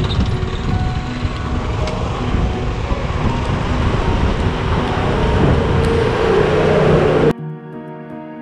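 Car driving, with engine and tyre noise heard from inside the cabin, growing a little louder toward the end. About seven seconds in it cuts off suddenly and gives way to background music.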